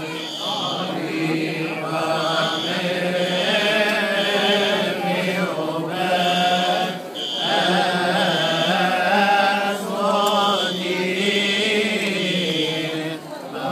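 Voices chanting a Coptic liturgical hymn in unison, a slow melodic chant that runs on with brief dips for breath about seven and thirteen seconds in.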